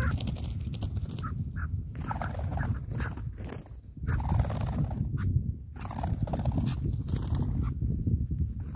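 Chukar partridges calling: bouts of short, repeated chuck notes, with a steady low rumble underneath.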